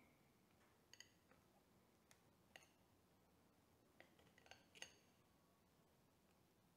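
Near silence with about half a dozen faint, short ringing clinks, like small glass or metal objects touching, the loudest cluster about four to five seconds in.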